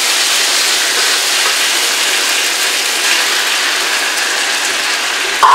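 Pad thai rice noodles frying in a hot pan, a steady crackling sizzle. A short sharp sound comes near the end.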